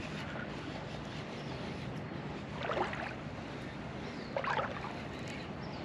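River water running and lapping steadily, with two brief splashes, about three and four and a half seconds in.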